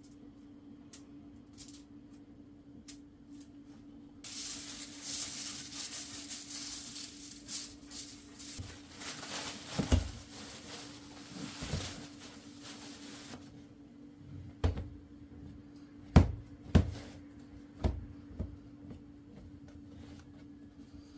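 Kitchen work sounds over a steady low hum: a hiss lasting about nine seconds, then a handful of sharp knocks of things being set down or handled, the loudest two close together.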